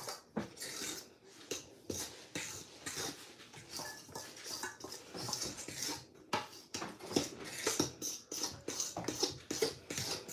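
A hand mixing bread dough in a stainless steel bowl: a run of irregular scrapes and squishes of dough and flour against the metal.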